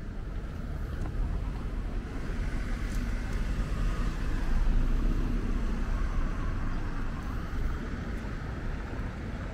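City street traffic with a motor vehicle passing: a low steady rumble that swells to its loudest about halfway through, then fades.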